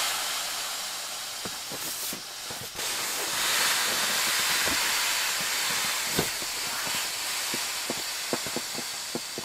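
Air hissing out of the open deflate valve of a Lost Horizon foam-filled inflatable sleeping mat as the rolled mat is pressed down to squeeze it flat, with small clicks and rustles of the mat. The hiss drops off briefly about three seconds in, then picks up again and slowly weakens.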